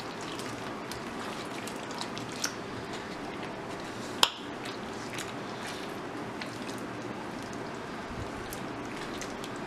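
A wooden spatula stirring thick chicken curry gravy in a black nonstick wok: wet squelching under a steady hiss, with scattered light taps of the spatula against the pan, the sharpest about four seconds in.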